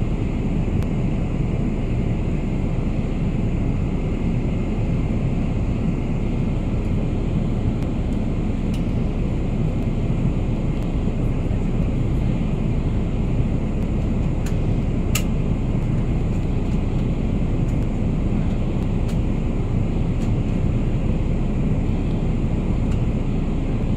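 Steady low roar of a Boeing 777-300ER passenger cabin, engine and airflow noise at an even level, with a few faint clicks.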